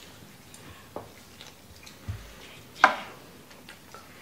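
Quiet tabletop clicks and taps of a spoon and dishes during a meal, with a soft low thump just after two seconds and one sharper click a little before three seconds in.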